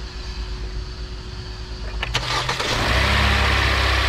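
2020 Hyundai Accent's four-cylinder engine being started for the first time after an oil change. About two seconds in, the starter cranks briefly and the engine catches, then runs on at a steady idle while the fresh oil circulates.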